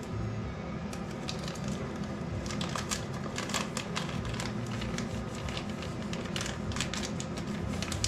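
Clear plastic bag crinkling and crackling as it is handled and cut to size, in quick irregular runs of small crackles, over a steady low hum.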